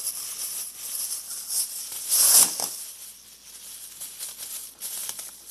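Thin plastic rustling and crinkling as disposable gloves are handled and pulled on, with one louder rustle about two seconds in.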